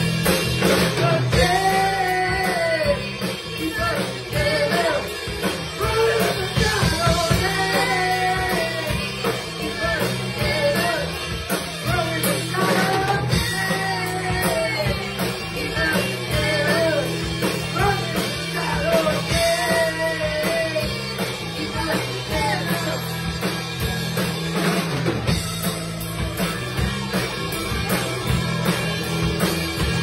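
Live rock band playing: electric guitars over a drum kit, with a bending lead melody through much of it.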